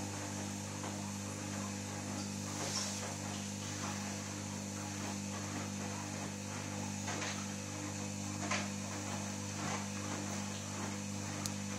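Beko SMW 3508 washing machine on a 30° delicates cycle: the drum motor runs with a steady hum while water and laundry slosh and tick faintly in the turning drum.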